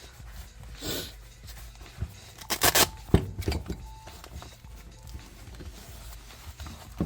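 Hand-handling noise while unpacking a tool set: rustling, a brief noisy burst about a second in, and a louder quick ripping sound near the middle, followed by a few light knocks.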